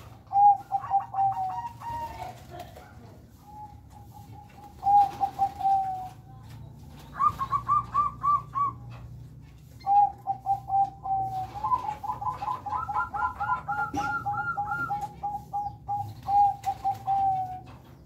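Zebra doves (perkutut) cooing: several phrases of quick staccato notes, each phrase a run of short, clear coos. In the second half a second bird's coos overlap a little higher in pitch.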